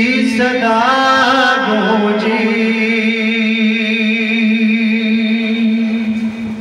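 Male noha reciter chanting a Farsi mourning elegy without accompaniment. A wavering, ornamented phrase leads into one long held note, sustained with slight vibrato for about four seconds and ending near the close.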